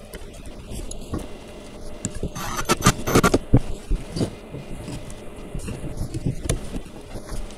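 Painted doll high-chair rails and legs being pushed together and handled on a tabletop: scattered knocks and scrapes of the pieces against each other and the table, busiest about two to three and a half seconds in.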